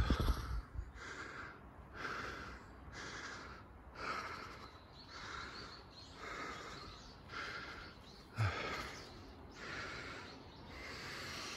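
Heavy, even breathing close to the microphone, about one breath sound a second, as from someone walking up a slope. There is a dull bump right at the start and another about eight and a half seconds in.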